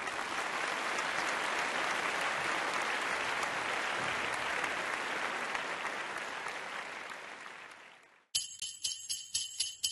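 Applause, steady and then fading out about eight seconds in. Right after, jingle bells start suddenly, shaken in an even rhythm of about three strokes a second.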